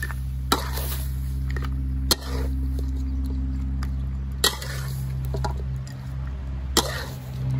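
Metal spatula stirring fish heads and curry paste in a wok, striking the pan with a sharp clank about every two seconds, over a steady low hum.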